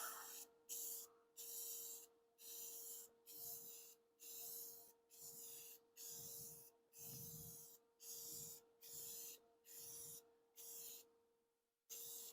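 Paintbrush strokes laying gloss black paint onto a cast iron machine base: faint, even swishing brush strokes repeating about every two-thirds of a second.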